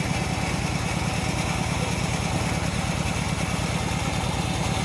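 Small engine of a homemade bandsaw sawmill running steadily at an even speed.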